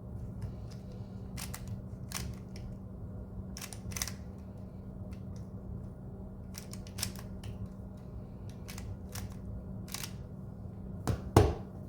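3x3 plastic speed cube being turned quickly by hand, its layers clicking in short irregular runs, with a louder knock near the end.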